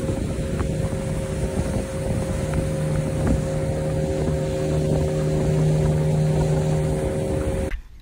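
Boat's outboard motor running steadily at cruising speed, with a steady drone, water rushing along the hull and wind on the microphone. The sound cuts off suddenly near the end.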